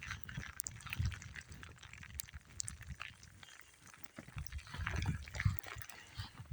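A dog moving about and playing in fresh snow: scattered soft thuds and rustling with small crackles, louder for a moment about five seconds in.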